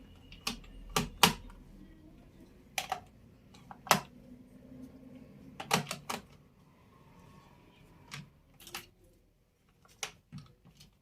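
Irregular sharp clicks and light knocks of small plastic makeup containers and caps being handled and set down, about a dozen of them spread unevenly.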